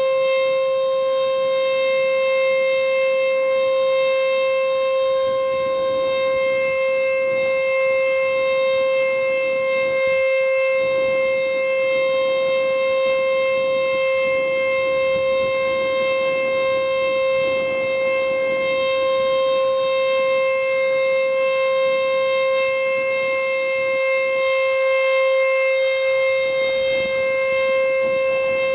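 ACA Screamer nine-port outdoor warning siren sounding at full speed, holding one steady, unchanging tone with a row of overtones.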